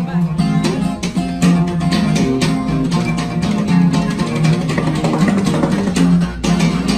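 Acoustic guitars playing Mexican regional-style music: a quick picked requinto lead over a chicoteada, slap-strummed rhythm guitar, with an acoustic bass line underneath.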